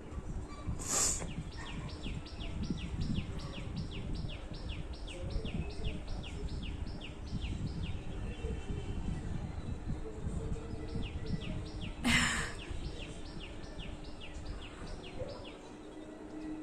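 A bird calling in a long, even series of short falling chirps, about three a second, with a brief pause about ten seconds in, over a steady low background noise. Two short breathy rushes of air stand out, about a second in and again about twelve seconds in.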